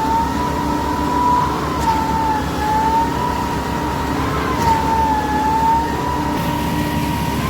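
Truck-mounted concrete pump running under load: engine rumble with a steady whine that rises sharply and then sags in pitch about every three seconds, keeping time with the pump's strokes.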